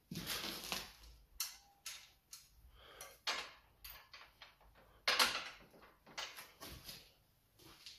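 Irregular clicks, knocks and rustling from hands working the control cables and plastic fittings on a lawn mower's handlebar. The loudest knock comes about five seconds in.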